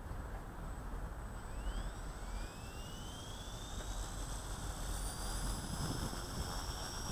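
CopterX CX250SE 250-size electric RC helicopter spooling up: a high whine that starts about a second and a half in and climbs steadily in pitch, over a steady low rumble.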